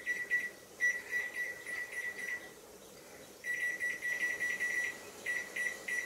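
Microwave oven control panel beeping as its buttons are pressed to set the cooking time: quick runs of short, high beeps in three strings with short gaps, then a few single beeps near the end.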